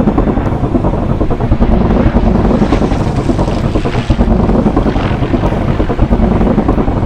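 P-40 Warhawk's piston engine running loud and steady in flight, with wind noise on the microphone.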